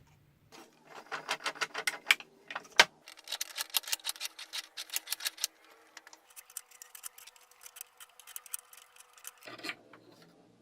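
Rapid, even mechanical clicking, several clicks a second, louder in the first half and thinning out toward the end.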